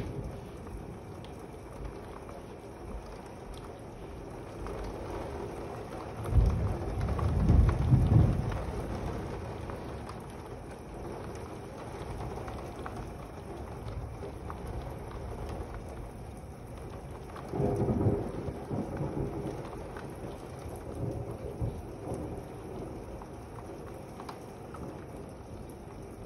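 Steady rain with thunder rumbling twice: a loud roll about six seconds in that lasts a few seconds, and a second, shorter one about eighteen seconds in.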